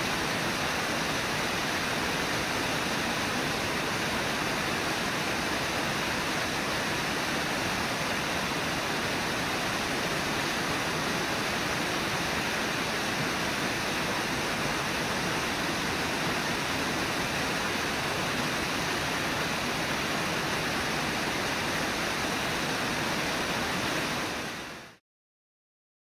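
Steady rush of the Brooks River's water at Brooks Falls, fading out near the end.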